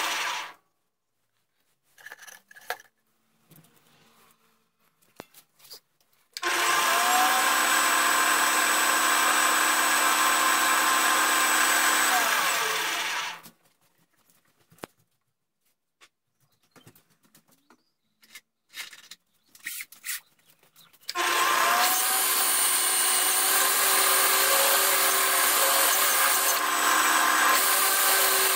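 Small metal lathe running, switched off within the first second, started again about six seconds in, stopped again about thirteen seconds in, and started a third time about 21 seconds in, each start and stop with a short rise or fall in pitch. Faint clicks and knocks of handling the chucked brass work come while it is stopped.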